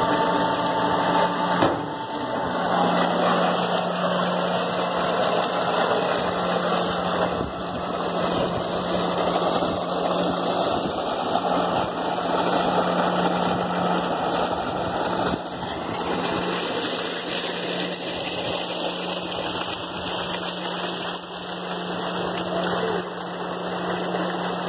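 A steady machine hum over a continuous rush of water pouring from a solar tube well's discharge pipe.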